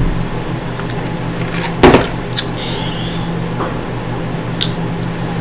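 A single sharp knock about two seconds in, as a plastic pitcher is set down on a table, with a few fainter clicks around it. A steady low hum runs underneath throughout.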